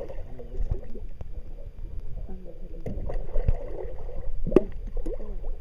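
Water sloshing and gurgling at the surface beside a boat hull, with a few sharp knocks partway through.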